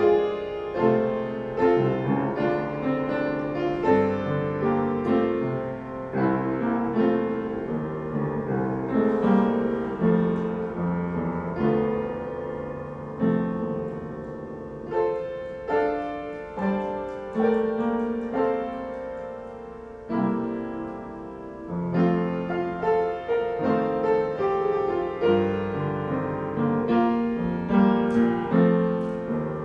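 Solo piano playing a slow prelude of sustained chords and melody notes.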